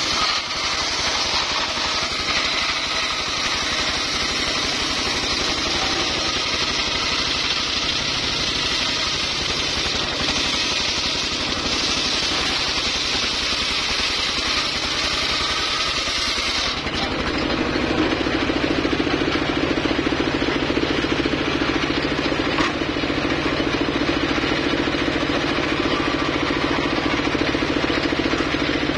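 Homemade circular saw rig running steadily while sawing teak or sengon wood. About two-thirds of the way through, the high hiss drops away and a lower steady drone takes over.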